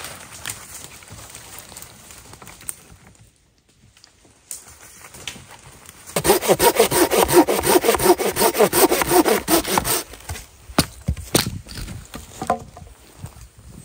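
Small hand saw cutting through dry deadwood: about four seconds of fast, even back-and-forth strokes starting about six seconds in, loud against the quiet before. A few sharp knocks follow near the end.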